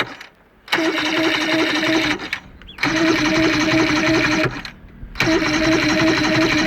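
Electric starter cranking a Johnson V4 115 hp two-stroke outboard in three bursts of about a second and a half each, a steady whine with fast pulsing, stopping abruptly each time. The engine does not catch: a no-start.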